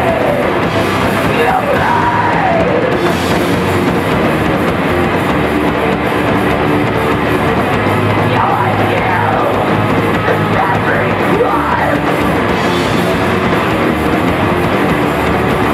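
Live punk band playing loud and dense, with distorted electric guitar, bass and drums. Sliding pitches sweep down and up a few times, near the start and again past the middle.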